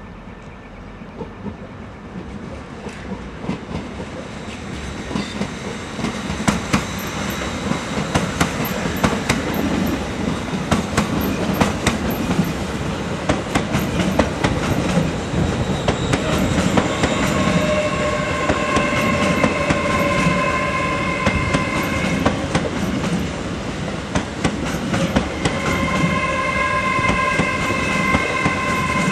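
Electric passenger train approaching and running past, growing louder over the first few seconds. Then comes a dense run of clicks from the wheels over the rail joints. In the second half a steady high-pitched squeal sounds in two long stretches.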